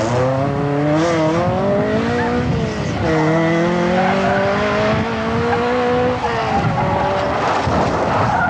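Ford Sierra RS Cosworth rally car's engine revving hard as it approaches at full throttle. The pitch climbs, drops at a gear change about three seconds in, and climbs again. About six seconds in the engine note falls away, leaving a rush of tyre noise on the road surface.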